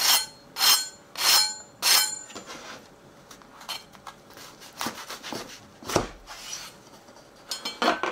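Knife sawing through a crusty toasted loaf: four loud crunching strokes in the first two seconds, then quieter crackling as the blade works down through the sandwich, with a single knock about six seconds in. A burst of crackling near the end as the cut halves are pulled apart.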